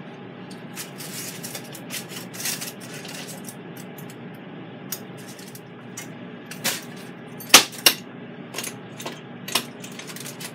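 Metal rotisserie forks and spit clinking as they are worked loose and pulled out of a cooked pork tenderloin, with aluminium foil rustling under the meat. The clinks come irregularly, the sharpest being two close together about seven and a half seconds in.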